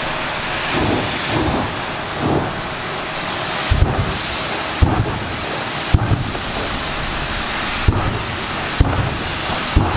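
Jet-powered drag car at the starting line, its turbine giving a loud steady roar. From about four seconds in, deep booms come roughly once a second, the afterburner being pumped to throw flame and smoke.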